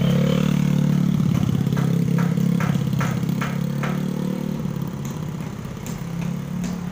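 A motor vehicle engine running steadily close by in slow street traffic, easing slightly after about four seconds, with a few light clicks about midway.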